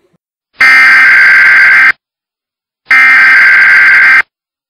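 Emergency alert broadcast signal: two loud, buzzy electronic screeches of about a second and a quarter each, a second apart. These are the data bursts that open an Emergency Alert System warning.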